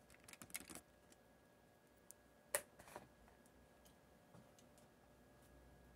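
Near silence with faint handling clicks and taps in the first second, then one sharper tap about two and a half seconds in.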